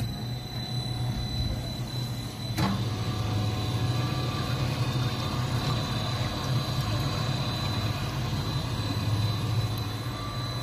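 Electric supply pump starting as its selector switch is turned on, then running with a steady low hum. A single sharp knock about two and a half seconds in.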